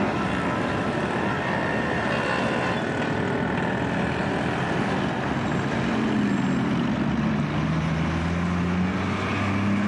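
City street traffic with vehicle engines running. About two-thirds of the way through, a nearby engine's note slides down in pitch and then holds steady.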